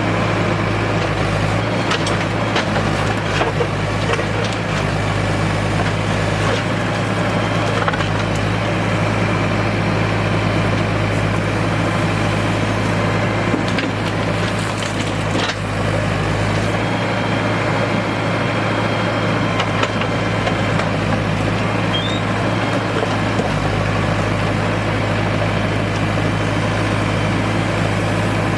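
Heavy diesel engine running steadily as a backhoe loader loads stones, with scattered knocks and clatter of stones striking metal and each other.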